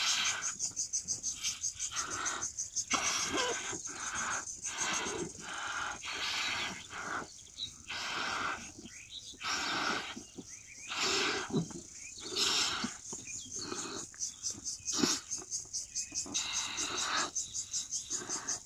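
Latex balloons being blown up by mouth: a run of breathy puffs of air into the balloons, with short pauses for breath between them.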